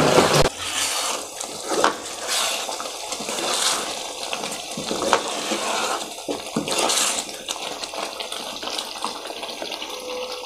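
Soya-chunk curry gravy bubbling at a boil in a pan, with a steel ladle stirring through it and a few light clicks against the pan.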